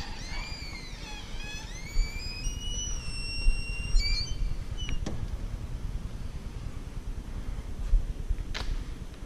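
A heavy door squealing on its hinges as it swings, a long squeak that wavers up and down in pitch and stops with a click about four seconds in. After it there is a low rumble of movement with a couple of sharp clicks.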